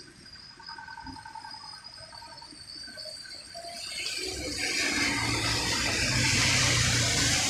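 A light truck driving past on a flooded wet road: its tyres hiss through standing water over a low engine rumble, building up from about halfway through and loudest near the end.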